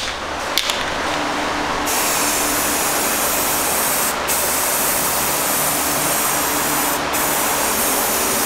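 Aerosol spray-paint can spraying in long steady hissing passes, the spray letting off briefly twice, about four seconds in and about seven seconds in.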